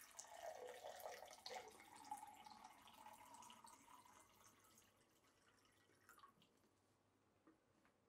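Water poured from a pitcher into a tall drinking glass, faint, its pitch rising as the glass fills, then fading out about halfway through as the pour ends.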